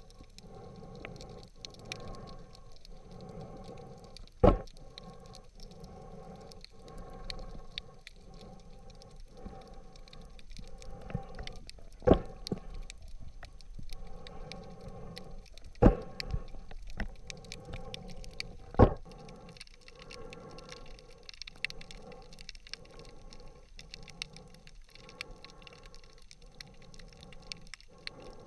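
Underwater sound picked up by a diver's camera in its waterproof housing: a muffled water noise that pulses a little faster than once a second, with faint crackling and four sharp knocks spread through it.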